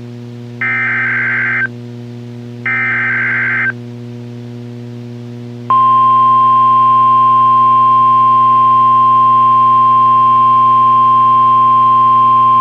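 NOAA Weather Radio emergency alert signal: two short bursts of the SAME digital header, each about a second of buzzy warbling data, then after a two-second gap the louder 1050 Hz warning alarm tone starts and holds steady. A low hum runs underneath throughout.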